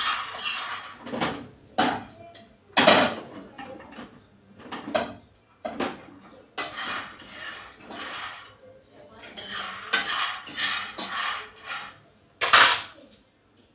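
Dishes and cutlery clattering as they are handled, a run of irregular knocks and scrapes, with two louder clanks about three seconds in and near the end.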